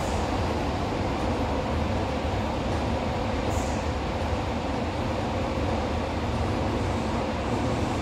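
Steady running noise inside a Fukuoka City Subway Airport Line car: the even rumble and hiss of the train travelling along the line.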